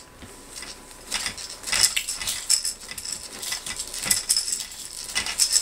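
Toys hanging from a baby bouncer's toy bar jingling and clinking irregularly as the seat bounces under a baby's kicks.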